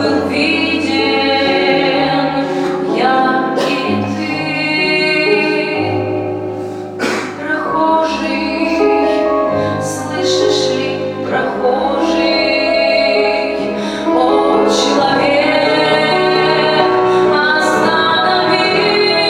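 Music: female singing over an accompaniment with held low notes that change every few seconds.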